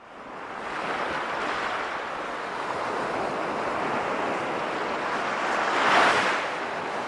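Sea waves in a steady rush of surf that fades in over the first second, with one wave swelling louder about six seconds in.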